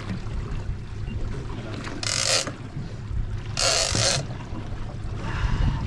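Steady wind noise on the microphone and a low boat rumble. Over it come three brief bursts of splashing, about 2 s in, about 3.6 s in and near the end, as the hooked broadbill swordfish churns the surface beside the boat.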